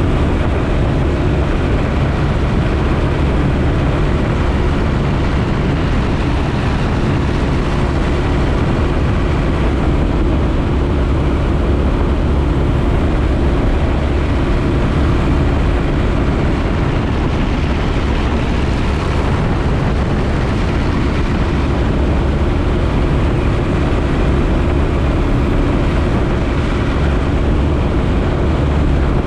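Piper J-3 Cub's small four-cylinder engine and propeller running steadily at constant power, a loud, even drone.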